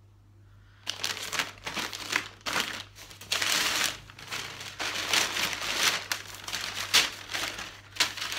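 Brown kraft-paper wrapping crinkling and rustling in repeated bursts as it is unfolded and pulled open by hand, starting about a second in.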